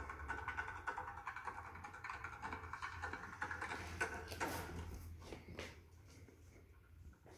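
Sound of a broadcast playing from the TV's built-in speakers, with scattered clicks and taps; it fades to a low level about five seconds in.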